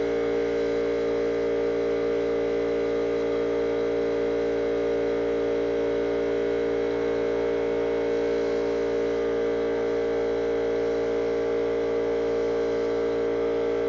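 Steady, unchanging machine hum made of a few strong even tones, with a faint hiss above it.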